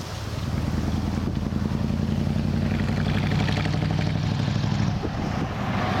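Jet engines of a Jetstar Airbus A320 climbing overhead after takeoff, a steady low drone with wind noise on the microphone. The drone drops away about five seconds in.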